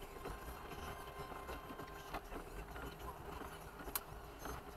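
Faint low rumble inside a stopped car, as picked up by a dashcam, with scattered light clicks and one sharp click about four seconds in.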